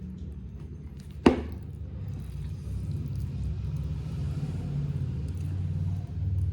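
Close-miked eating sounds: a low, muffled rumble of chewing, with one sharp click a little over a second in.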